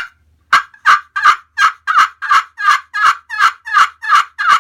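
A 3-inch flat copper turkey pot call played with a heavier bloodwood striker. A sharp click comes first, then a steady run of raspy hen yelps, about three a second.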